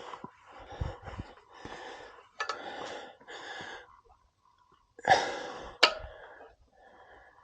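A man breathing hard and wheezily in short puffs, with a pause partway through, punctuated by two sharp clicks.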